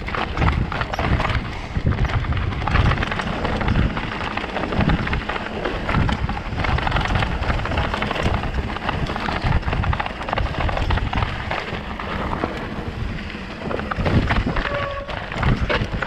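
Electric mountain bike riding down a rocky, stony trail: tyres rumbling and clattering over rock, the bike rattling over the bumps, and wind buffeting the microphone. A brief faint squeal sounds near the end.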